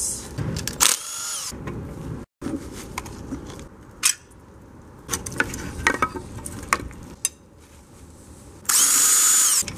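A cordless power tool's motor whining up in two short runs, about a second in and again near the end, loosening fasteners on a Honda J-series V6 being torn down. Between the runs come metal clinks and clanks of engine parts and hand tools.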